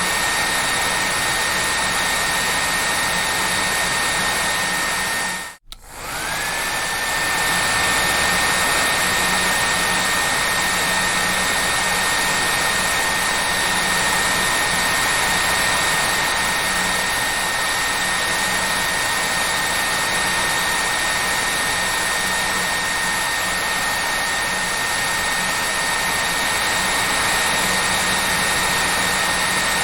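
Hair dryer running steadily, a rushing blow of air with a thin high whine from its motor. About five and a half seconds in it drops out for a split second, then comes back with the whine climbing quickly back up to pitch.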